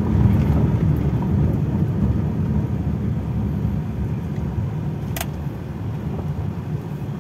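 Daihatsu Charade Classy driving along, heard from inside the cabin: a steady engine and road rumble that slowly eases off. One sharp click about five seconds in.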